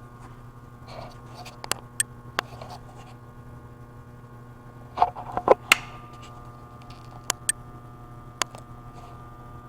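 Scattered light clicks and knocks of objects being handled, about ten in all, the loudest group about five seconds in, over a steady electrical hum.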